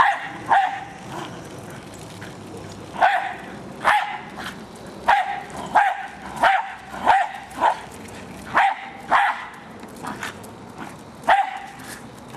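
Jack Russell terrier barking at a remote-controlled toy car: about a dozen short, sharp single barks at irregular intervals, excited play-barking at the moving toy.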